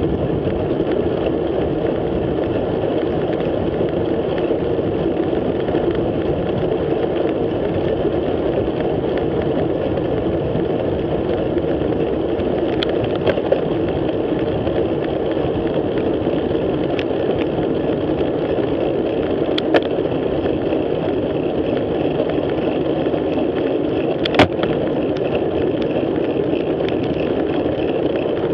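Steady rushing wind and road noise from a bicycle moving at speed, wind buffeting the action camera's microphone. A few sharp clicks or knocks come through it, the loudest about three-quarters of the way in.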